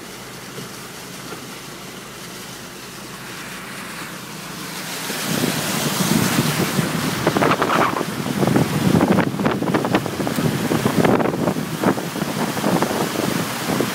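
Car tyres running through shallow floodwater over the road, heard from inside the cabin. A quiet steady hum gives way, about five seconds in, to a loud, uneven rush of water splashing and spraying against the wheels and underbody.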